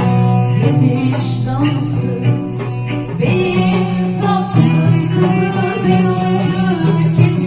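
Music: a song with singing over plucked-string accompaniment.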